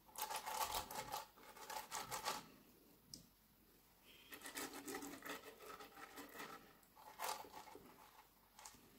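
Pastry brush scraping over the ridged grid plates of a waffle maker, brushing on melted butter in quick short strokes: a brisker spell for about two seconds, a pause, then a longer, softer spell of strokes.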